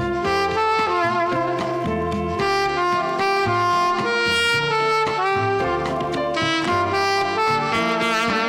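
Alto saxophone playing a slow melody, some notes with vibrato, over an accompaniment with a bass line and drums.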